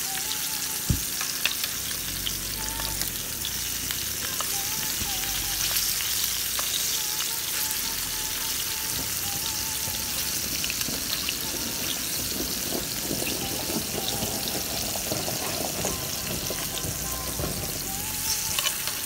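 Floured fish steaks sizzling steadily in hot oil in a cast-iron frying pan, with a few sharp clicks and scrapes of a fork and spoon against the pan as the pieces are turned.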